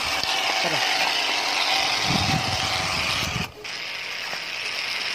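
Small DC hobby motors whirring steadily as they spin the propellers of a homemade bottle-body toy car, with a short break about three and a half seconds in.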